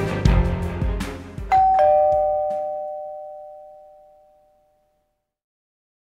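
Intro music ending, then a two-tone ding-dong doorbell chime, a higher note followed by a lower one, ringing out and dying away over about three seconds.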